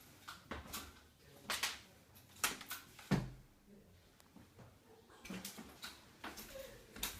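Irregular knocks and thumps in a small room, several within a few seconds, the loudest about three seconds in.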